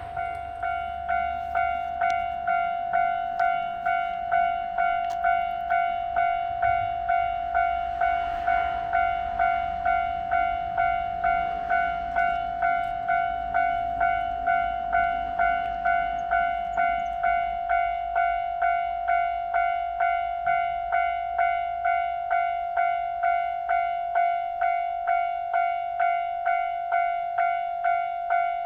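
Japanese railroad crossing warning bell ringing the 'kan-kan' alarm, with even strikes about one and a half times a second. Under it, the low rumble of a passing train fades out about two thirds of the way in.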